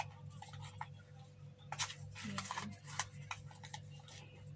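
Scattered clicks and rustles of a small gadget and its packaging being handled, over a steady low hum.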